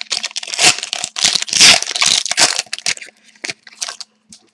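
Foil hockey card pack wrapper being torn open and crinkled, a dense crackling rustle for about three seconds, then a few lighter crinkles and clicks as the cards are slid out.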